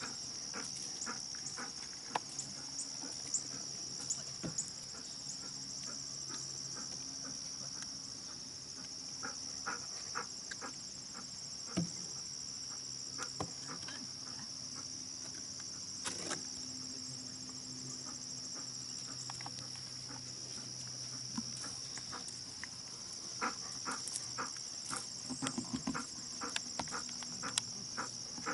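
Steady, high-pitched chirring of an insect chorus, with scattered light knocks and clicks.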